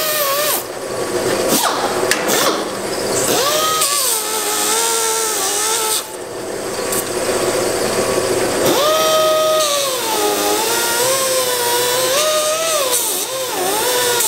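Handheld sanding-disc grinder whining against a brake rotor turning on a brake lathe, putting a non-directional finish on the rotor face. Its pitch sags and recovers as it is pressed on and eased off, it stops briefly around the middle, then spins back up with a sudden rise.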